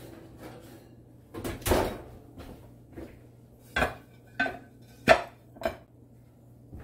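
Cast-iron skillet clattering against a ceramic plate as it is turned over to knock out a round of baked cornbread: a louder clatter, then four short sharp knocks.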